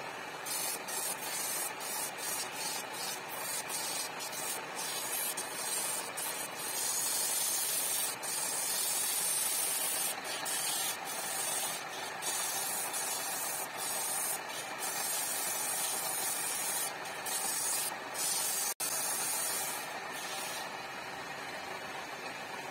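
A turning chisel cutting a spinning wooden sofa leg on a wood lathe: a steady hiss of shavings that breaks off and starts again many times as the tool is pressed in and eased off, in longer unbroken cuts through the middle. The sound drops out for an instant about three-quarters of the way through.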